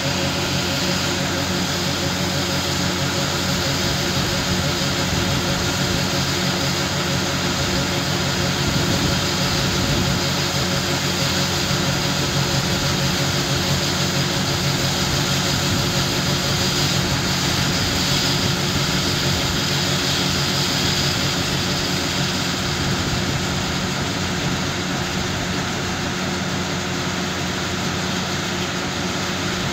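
John Deere Hydrostatic combine running steadily at unloading speed, its engine and unloading auger going together with the hiss of shelled corn pouring into a grain truck. The hiss of the grain dies away about two-thirds of the way through as the unloading ends, leaving the combine running.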